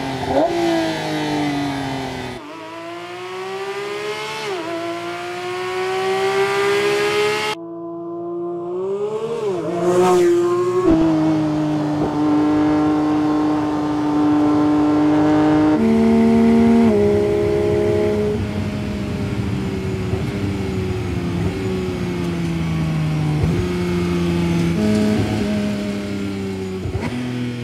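Porsche 911 GT3 RS (992) 4.0-litre naturally aspirated flat-six revving hard on track. The pitch climbs with the revs and drops back at each gear change, with a long steady high-rev stretch in the middle. About ten seconds in, a quick rise then fall in pitch as the car passes.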